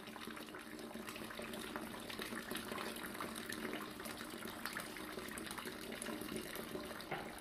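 Steady gushing of running water, like a fountain spraying.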